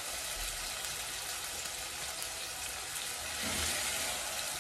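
Tomatoes, onions and sweet pepper frying in olive oil in a pan: a steady sizzling hiss.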